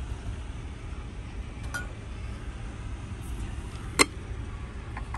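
Handling of a guitar and its hard case: a couple of faint clicks and one sharp metallic clink about four seconds in, over a steady low rumble.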